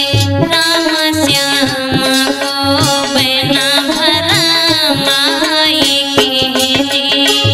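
Indian folk music for a malhar song: an ornamented melodic line with wavering pitch over steady hand-drum strokes.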